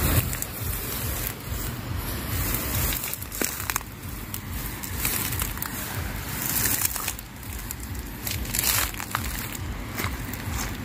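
Footsteps through tall grass and soft, waterlogged mud, the grass stems rustling and crunching underfoot.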